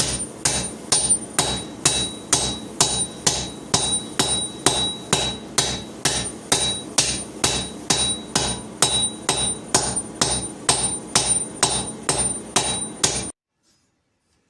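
Steady hammer blows on a hot damascus steel billet over an anvil, about two strikes a second with a high metallic ring after many of them, as the billet is drawn out into a long sword blade. The hammering stops suddenly near the end.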